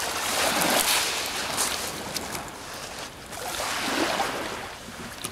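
Small sea waves washing onto the shore, the wash swelling about half a second in and again near four seconds.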